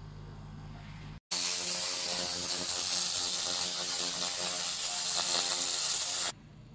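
Handheld laser cleaning machine's beam ablating the surface of a metal plate in a figure-eight scan: a loud hissing crackle with a steady buzz that starts suddenly about a second in and stops sharply near the end. A low steady hum comes before it.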